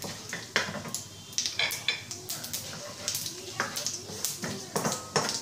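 A spatula stirs chana dal, mustard seeds and cumin through sizzling oil in a non-stick wok. Frequent sharp, irregular scrapes and ticks sound against the pan. This is the tempering stage of the dish.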